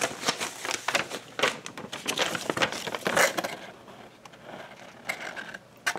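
A paper instruction sheet rustling and crinkling as it is unfolded and handled, irregular for about three seconds, then quieter with only occasional light rustles.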